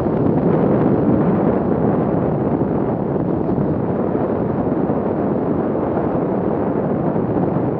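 2017 Arctic Cat M8000 snowmobile's two-stroke engine and track running at a steady trail speed, mixed with wind buffeting on the helmet-mounted microphone.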